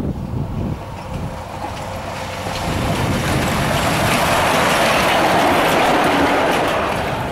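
Brill railcar and its trailer carriage passing close by on the line. The noise builds to a peak about five to six seconds in, then starts to ease off.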